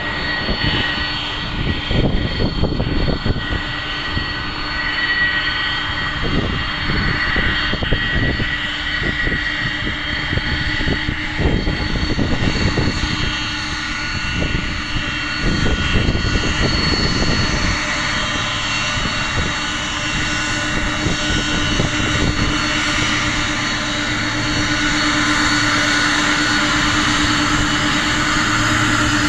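Boeing 767-300ER's twin turbofan engines running at taxi power, a steady jet whine with several held tones over a dense rush, growing a little louder near the end as the airliner draws close. Irregular low rumbles run through the first half.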